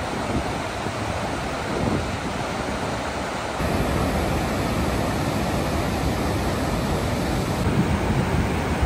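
Steady rushing noise with no tones in it, stepping up a little in loudness about three and a half seconds in.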